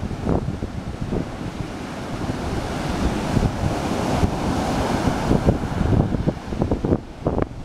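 Ocean surf breaking and washing up the beach, a steady hiss that swells about halfway through, with wind buffeting the microphone in low, irregular gusts.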